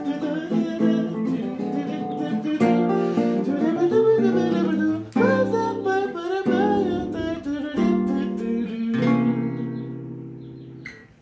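A man singing to a strummed acoustic guitar. Over the last two seconds a final chord rings on and fades away.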